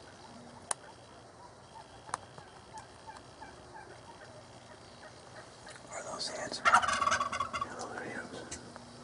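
Wild turkey gobbler gobbling once, a loud rapid rattling call of about two seconds a little past halfway in. Two short sharp clicks come earlier.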